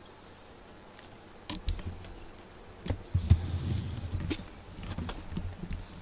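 A cat moving about on a desk right at a handheld camera, brushing against it: scattered small taps and knocks with a low rubbing rumble, loudest a little past the middle.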